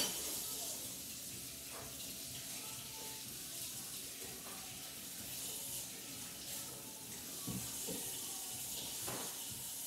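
Tap running steadily into a sink: an even rush of water, with a few faint knocks.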